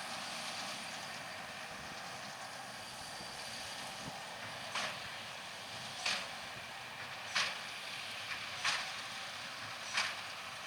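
John Deere 6195R tractor running steadily under load as it drives a Massey Ferguson 2170 large square baler baling straw. From about halfway in, a sharp clack repeats evenly about every 1.3 seconds.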